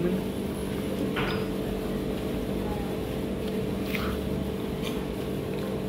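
A steady mechanical hum with a few fixed low tones, over a low rumble, and a couple of faint brief sounds about a second in and near four seconds.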